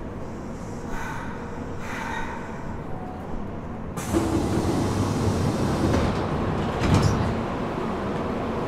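Interior running sound of a Nagoya Municipal Subway 3000 series chopper-controlled train: a low rumble that jumps suddenly to a louder rush of wheel and track noise about four seconds in, with a sharp knock about three seconds later.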